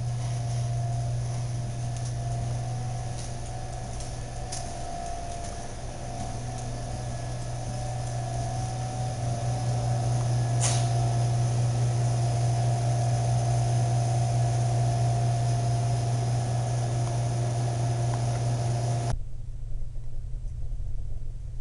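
A steady mechanical hum: a strong low drone with a thin steady tone above it and a hiss over the top, with a few faint clicks. Near the end the hiss and the higher tone cut off suddenly, leaving only the low drone.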